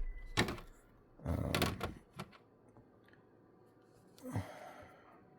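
Handling noises: a knock, a longer stretch of rustling, a click, then a softer rustle near the end, as parts are moved about by hand.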